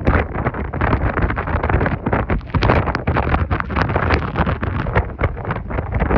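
Strong tropical-storm wind gusting and buffeting the microphone, loud throughout, with many sharp crackles.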